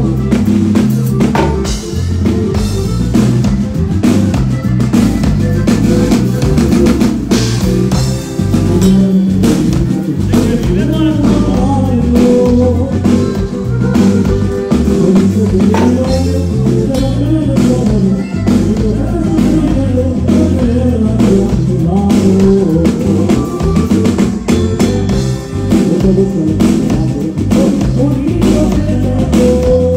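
Live band playing loud dance music, with an electric bass and drums keeping a steady beat.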